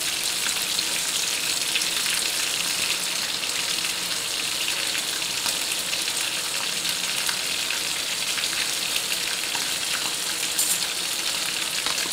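A steady sizzling hiss from a pan on a lit gas burner.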